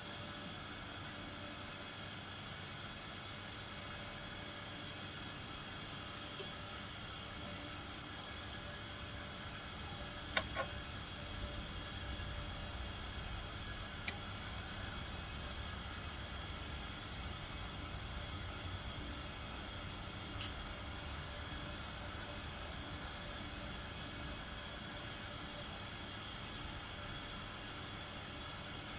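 Steady background hiss with no machine running, broken by a few faint, short clicks about ten seconds in and again a few seconds later.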